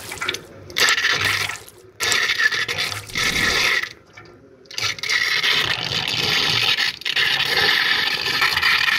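A stream of water splashing onto a toy car stuck in a stainless steel sink drain and rushing down the drain, in several spells broken by short pauses.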